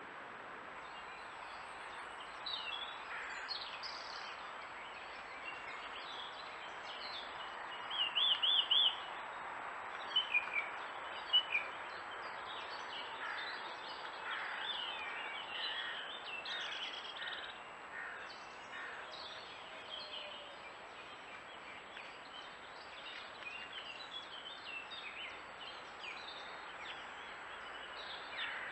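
Wild songbirds calling and singing over a steady hiss. A quick trill about eight seconds in and a few sharp chirps just after are the loudest notes, and a run of short falling notes follows.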